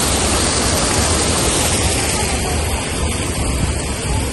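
Muddy stream water rushing and splashing over a low drop beside stepping stones, a steady loud rush.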